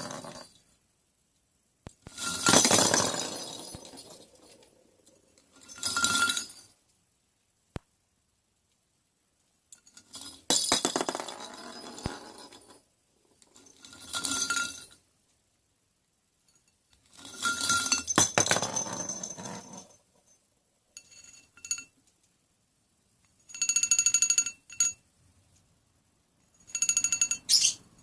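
Plastic lattice toy balls with bells inside clattering and jingling as a lovebird rummages and tosses them about in a bowl. This comes as about eight short bursts, each with a bright bell ring running through the rattle.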